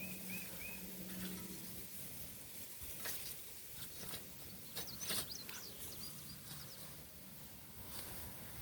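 Birds chirping outdoors, with a short phrase of chirps at the start and a higher twitter about five seconds in. A few short knocks and scrapes from digging in garden soil come through around three and five seconds in.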